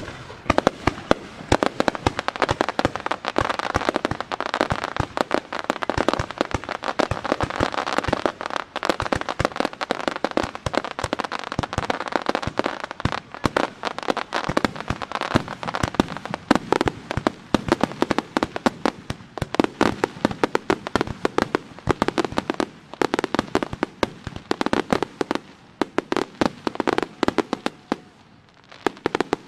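Aerial fireworks display: shells bursting in a rapid, almost unbroken string of bangs and pops, thinning out near the end.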